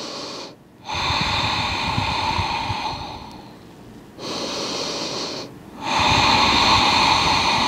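A woman's deep, audible breathing while holding a yoga stretch: four slow breaths in and out, the longer ones lasting about two seconds, with short pauses between them.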